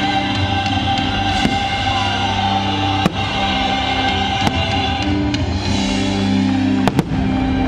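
Fireworks show soundtrack music playing over loudspeakers in long sustained chords, with several sharp bangs of fireworks shells bursting over it, two in quick succession near the end.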